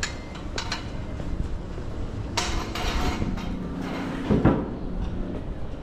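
City street ambience on a brick-paved street: a steady low rumble with a few sharp clacks, a burst of clatter about two and a half seconds in, and a loud thump a little after four seconds, over a brief low hum.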